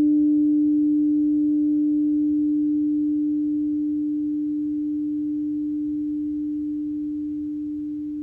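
Crystal singing bowl ringing on after being struck, one clear steady tone with faint higher overtones, slowly fading.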